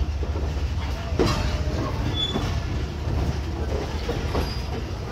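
Passenger train coach rolling slowly out of a station, heard from its open doorway: a steady low rumble with irregular clacks and knocks of the wheels over rail joints.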